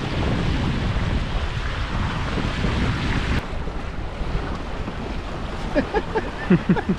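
Wind buffeting the microphone over the rush of water along the hulls of a Hobie Getaway catamaran sailing fast in a gust. The hiss eases slightly about halfway through.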